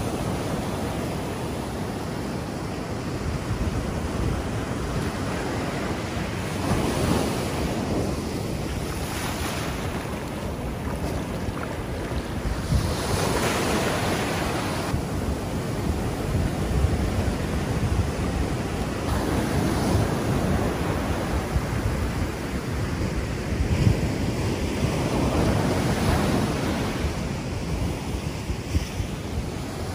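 Ocean surf breaking and washing up the sand, a steady rush that swells with each wave about every six seconds. Wind buffets the microphone underneath.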